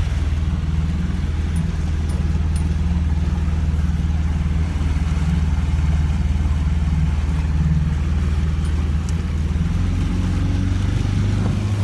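Motorboat engine running steadily with a low, even hum.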